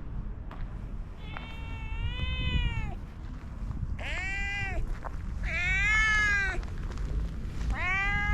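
Domestic cat meowing four times, each call rising and then falling in pitch, with the first the longest.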